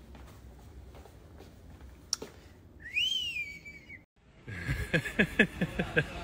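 A single whistle, about a second long, rising then falling in pitch. After a brief break, a louder run of quick sounds follows at about five a second.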